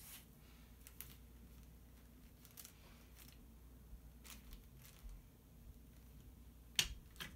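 Scattered light clicks and scrapes of a metal screwdriver working at a plastic printer toner cartridge, with a sharper click near the end.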